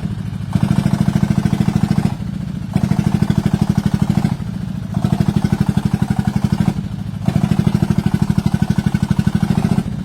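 Diesel engine of a homemade farm vehicle running with quick, even thudding beats, throttled up four times with short dips between, as it strains to drive its wheels out of the ground they are stuck in.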